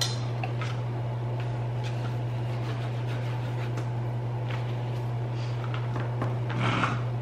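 A steady low hum fills the room, with light clicks and taps of felt-tip markers and pens being picked from a cup, uncapped and set down on a table. A short rustle comes near the end.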